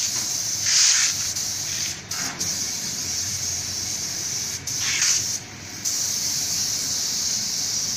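Compressed-air spray gun with a siphon cup hissing steadily as it sprays paint onto a car bumper. It is louder in short bursts about a second in and again around five seconds, and briefly quieter just after.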